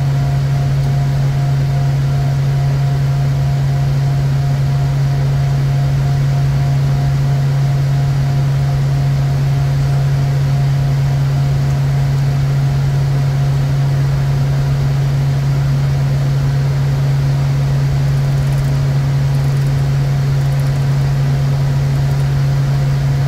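Steady cockpit drone of a Bombardier Challenger 350 business jet in its climb after takeoff: a constant low hum with a faint thin higher tone above it and an even rushing noise, unchanging throughout.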